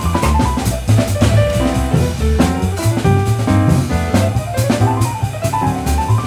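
Jazz piano trio playing: upright piano lines over a walking double bass, with a drum kit keeping time on cymbals and drums.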